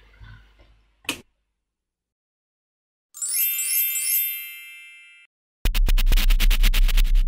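Electronic outro sound effects: a short click, then a bright shimmering chime that fades away over about two seconds, then a loud, fast glitchy stutter over a deep steady hum.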